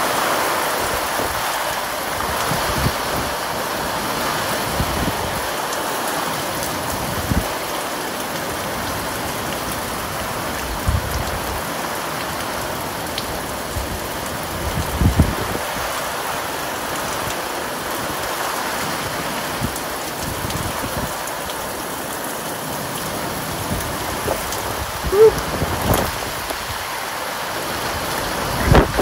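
Steady heavy rain from a hurricane, an even hiss, with wind gusting. A few short low thumps are heard, the loudest near the end.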